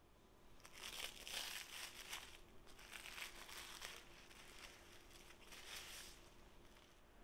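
Plastic cling film crinkling and rustling as it is peeled off a stuffed baguette, in several faint bursts between about one and six seconds in.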